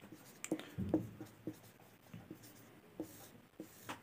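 Marker pen writing on a whiteboard: faint, irregular short scratches and taps of the tip as a word is written and then underlined.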